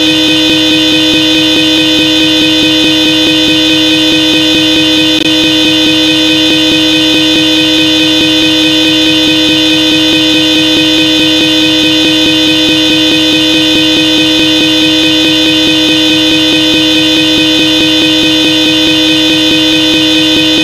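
Hella Supertone electric car horn sounding one continuous, unbroken blast at a steady pitch, loud throughout.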